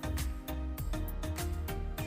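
Background music with a steady beat: bass hits about twice a second under pitched instrument notes.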